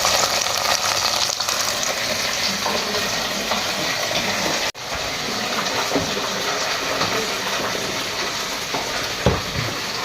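Steady rushing hiss of running water, breaking off for an instant about five seconds in.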